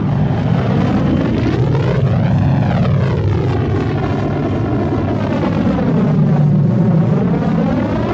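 Millennium Falcon interior engine sound effect from Star Wars: a steady, loud, low engine hum with a slow phasing whoosh that sweeps up and back down over several seconds.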